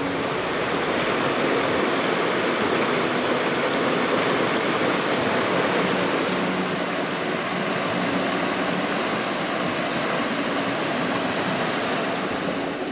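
Fast mountain river rushing over stones: a steady wash of flowing water.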